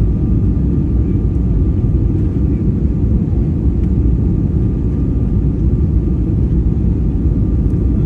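Steady low rumble of jet airliner cabin noise, with a faint steady whine above it.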